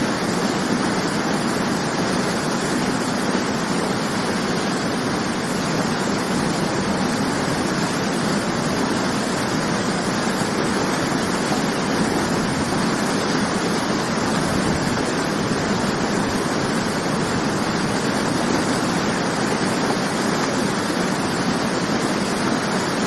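Waterfall: falling water crashing into a pool in a steady, unbroken rush, loudest in the low and middle range.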